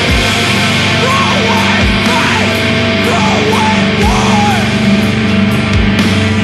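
Sludge/post-metal music: dense, heavy low bass and guitar tones held as a drone, with a slow heavy drum hit about every two seconds. Wavering higher tones drift over it in the middle.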